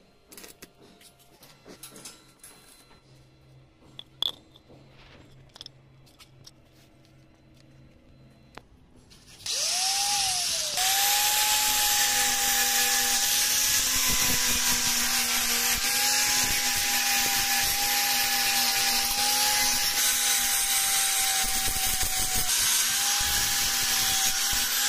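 A few faint clicks at first, then an electric angle grinder spins up with a rising whine about nine seconds in, falters briefly, and runs steadily under load, its abrasive disc grinding and polishing the joint of a stainless steel handrail tube.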